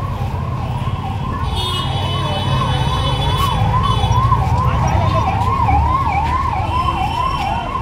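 Emergency vehicle siren sounding a fast yelp, its pitch rising and falling about twice a second, over low traffic rumble. A brief steady high tone sounds over it from about one and a half to nearly three seconds in.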